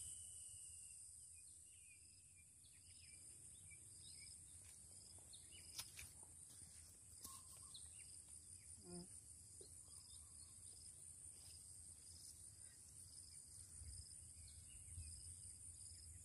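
Near silence with a faint, steady high-pitched insect chorus trilling throughout, over a low background hum; a couple of faint clicks midway.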